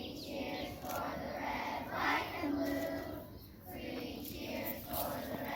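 A group of young children singing a song together in unison, with held notes that step up and down.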